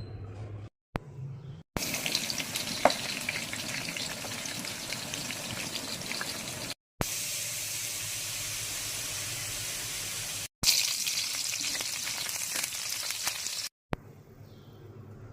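Food sizzling and crackling as it fries in a hot pan, heard in several short stretches joined by abrupt cuts.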